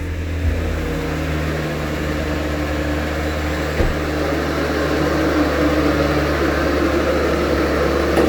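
Car engine idling right after a cold start, with the ticking noise it makes when started cold, slowly growing louder. There is one brief knock about four seconds in.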